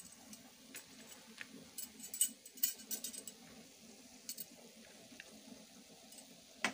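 Faint kitchen sounds: scattered light crackles and clicks over a low steady hum.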